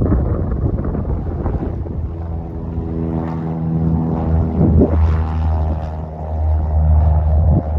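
Light propeller airplane's piston engine running, building over the first few seconds into a steady pitched hum with strong low rumble, with wind on the microphone.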